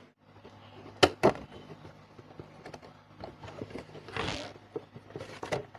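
Plastic protector case being opened and slid off a Funko Pop box: two sharp clicks about a second in, then light clicks and two short scraping swishes of plastic against cardboard near the end.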